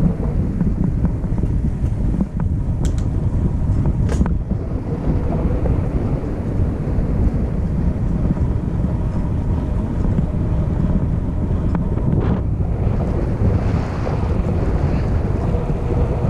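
Wind buffeting the microphone: a steady, loud low rumble, with two brief sharp clicks about three and four seconds in.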